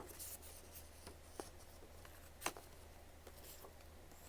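Faint handling noises of a plastic disc case: soft rubbing and rustling with three sharper clicks spread through, over a low steady hum.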